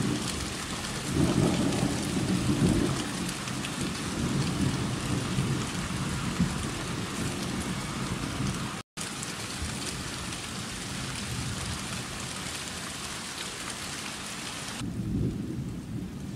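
Steady heavy rain with rolling thunder, the low rumble strongest about a second in and again near the end. The sound cuts out for a split second in the middle, and the rain's hiss drops suddenly near the end.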